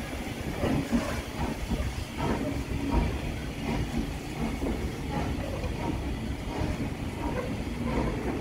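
Steam train hauled by an 0-6-0 tank engine moving slowly: a low rumble of rolling coaches with scattered clicks and knocks from the wheels, and a hiss of steam.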